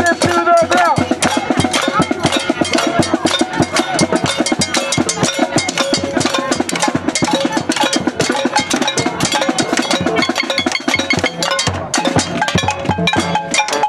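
Many drums and hand-held percussion noisemakers being beaten together in a rapid, continuous, loud clatter, with voices over it near the start.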